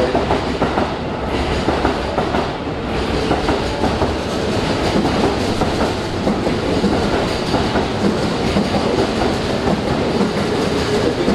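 JR West commuter electric train running into the platform and slowing as its cars pass, a steady rolling rumble of wheels on rail.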